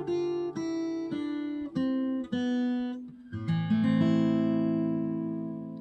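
Steel-string acoustic guitar playing a falling line of single plucked notes, about two a second, then a final chord strummed about three and a half seconds in and left ringing as it fades out.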